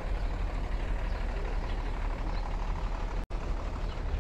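Steady city street traffic noise: a continuous low rumble of passing vehicles, buses and trucks. The sound cuts out for an instant a little over three seconds in.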